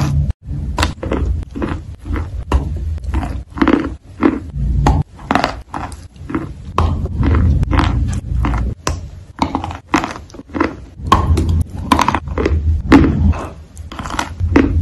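Close-miked biting and chewing of a crunchy, creamy-coated food, a quick run of irregular crunches and mouth clicks over a low rumble.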